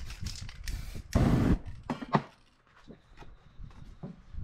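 Aerosol spray-paint can hissing in short bursts, the loudest and longest about a second in, followed by a few sharp clicks and knocks from the can being handled.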